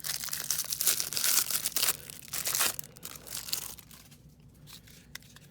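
A 1994 Flair baseball card pack being torn open, with crinkling and tearing of the packaging for about four seconds, then dying down to light handling.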